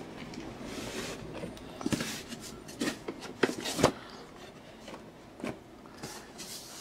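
Boxed Funko Pop figures being lifted out of a cardboard shipping case and set down on a table: light cardboard rustling and a handful of short knocks, the sharpest about two and four seconds in.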